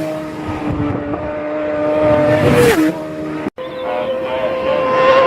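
Racing motorcycle engine running hard at high revs, holding a steady pitch that drops sharply twice, at the start and just under three seconds in, as it changes gear. The sound cuts out completely for an instant about three and a half seconds in.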